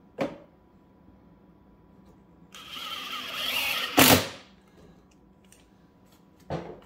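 Cordless drill/driver driving a number six pan-head screw into a half-inch HDPE divider: the motor runs for about a second and a half, getting louder, and ends in a sharp knock. A short click comes just before it, and another knock near the end.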